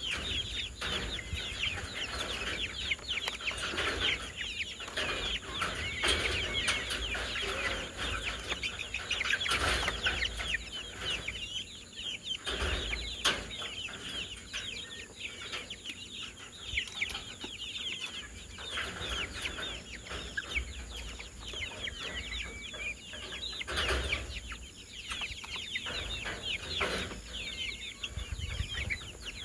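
A flock of young chickens peeping and chirping continuously in a dense stream of short, high, falling chirps, with a few brief knocks.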